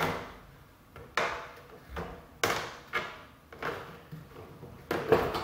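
Prismatic plastic diffuser cover of a 4-foot ceiling light fixture being fitted back onto its metal housing: a run of irregular sharp clacks and knocks as the cover is pushed and seated.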